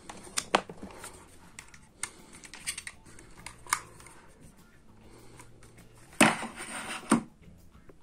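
Scattered light clicks and taps, then a louder, noisy rustle lasting about a second, some six seconds in.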